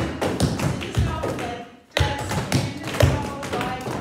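Tap shoes striking a hard floor: a quick, uneven run of taps and stamps from several dancers at once, pausing briefly about halfway through before picking up again, with music playing underneath.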